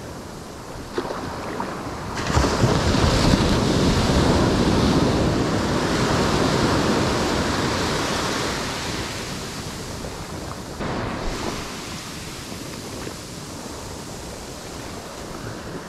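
Ocean surf washing up the beach: about two seconds in a wave's rush of foaming water swells, then slowly fades as it runs out and drains back.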